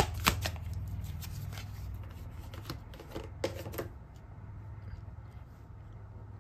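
Tarot cards being shuffled and handled: a run of sharp snaps and slaps of cards, most of them in the first second and again near the middle, then dying away, over a low steady hum.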